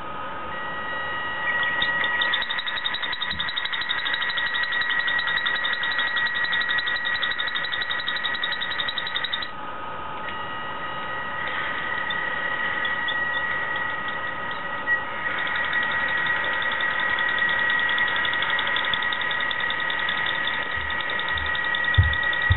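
Losi Comp Crawler RC rock crawler's electric motor and drivetrain running with a steady whine and a fast, even ticking rattle, the annoying noise the crawler has developed. The sound drops back briefly about ten seconds in, then picks up again, and a few low knocks come near the end.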